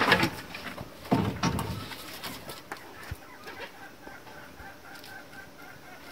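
Chickens clucking, with a thump about a second in.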